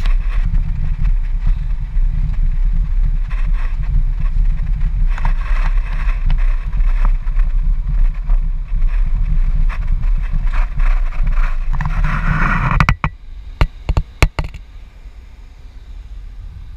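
Car driving slowly, heard from inside the cabin: a steady low rumble of engine and tyre noise. About thirteen seconds in it drops sharply to a faint hum, with a few sharp clicks and knocks.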